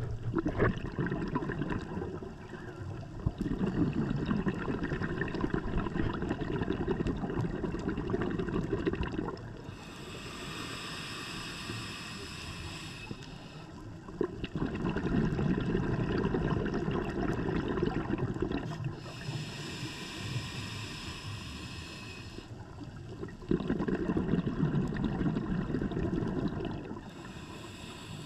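Scuba diver breathing through a regulator in slow cycles about nine seconds apart. Each long exhale bubbles out as a low rumble, and each shorter inhale comes through the demand valve as a high hiss.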